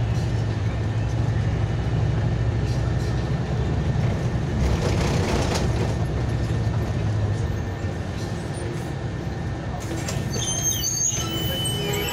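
Steady low rumble of a running vehicle, with a louder rushing swell about five seconds in. Thin high-pitched squeaks come in near the end.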